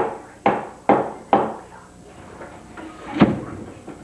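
A series of sharp knocks, about two a second, then a pause and one louder bang about three seconds in.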